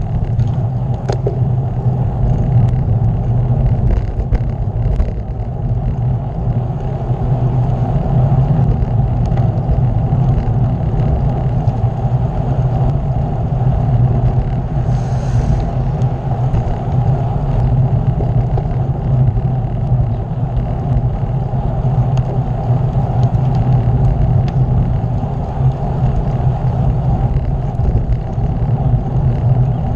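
Steady wind rumble over the microphone of a bike-mounted camera while riding on the road, with tyre and road noise underneath.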